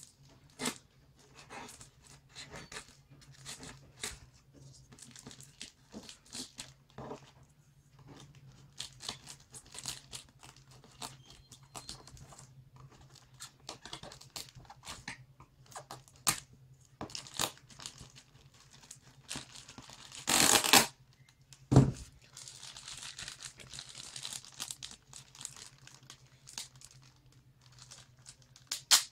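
Clear plastic packing tape being peeled and torn off a cardboard shipping box by hand, in many short scratchy rips and crinkles. About twenty seconds in comes one longer, louder rip, then a sharp thump and a stretch of plastic crinkling. A steady low hum runs underneath.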